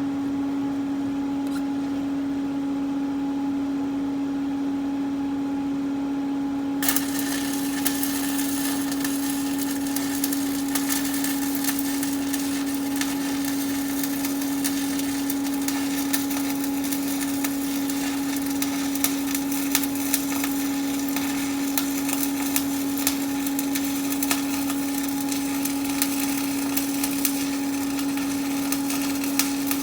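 A steady hum, then about seven seconds in a welding arc strikes and crackles and sizzles steadily on, laying a weld on a metal angle bracket.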